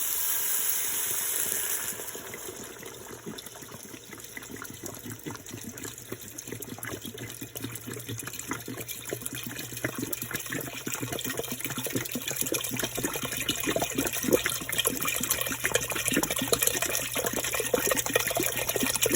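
Water pouring into a cooking pot over chicken pieces to cover them for broth. A steady rushing hiss for about two seconds gives way to splashing that grows louder as the pot fills.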